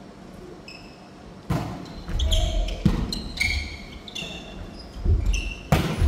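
A volleyball being struck by players during passing practice: four sharp hits a second or more apart, echoing in a large gymnasium, with short high squeaks in between.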